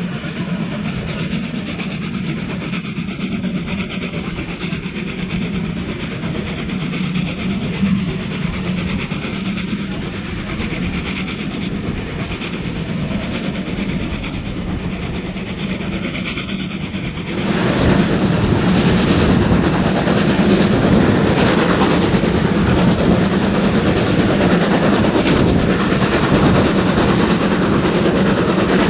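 Steam-hauled passenger train heard from an open coach window: steady running noise and wheel clatter on the rails. A little past halfway the sound turns abruptly louder and fuller, with a second steam train running alongside on the next track.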